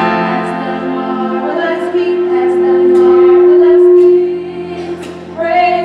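Small youth gospel choir singing held chords, coming in together at the start. The voices swell to a long held chord that is loudest just past the middle, fall away, and come back in on a new chord near the end.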